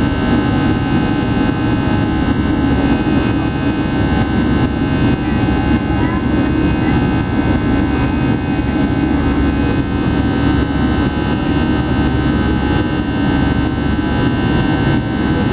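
Airbus A320's turbofan engines and rushing airflow heard from inside the passenger cabin during the climb after takeoff: a loud, steady roar with several steady whining tones over it.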